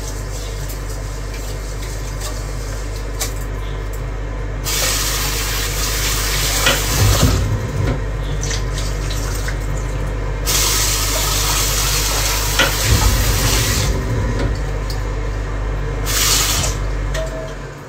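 Kitchen tap running water into the sink, coming and going in stretches as the flow is changed, then shut off just before the end, over a steady low hum.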